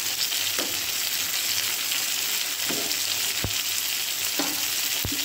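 Shallots, tomatoes and dried red chillies sizzling in oil in a kadai: a steady frying hiss with a few small pops.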